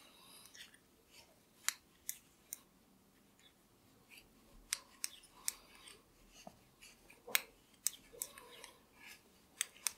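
9 mm knitting needles clicking and tapping as a row of chunky yarn is purled: faint, sharp, irregularly spaced ticks, about a dozen in all, closer together in the second half.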